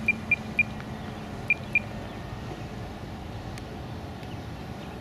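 A string of short, high electronic beeps, about five in the first two seconds, over a faint low hum that fades out about two seconds in. Then only steady background noise.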